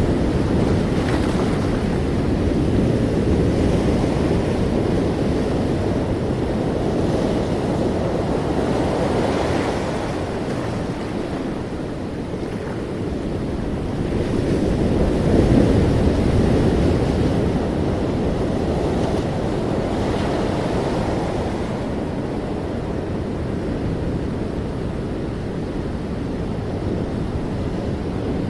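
Ocean waves breaking and washing in continuously, a steady rush of surf that swells and eases slowly, with a surge about halfway through. Wind noise on the microphone is mixed in.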